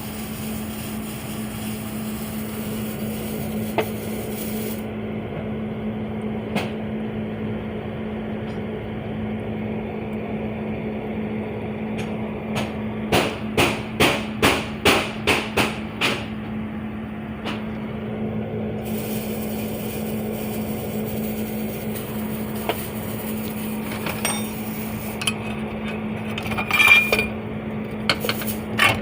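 Hammer blows on metal over a steady machine hum: a quick run of about ten strikes, roughly three a second, midway, then scattered clinking knocks near the end.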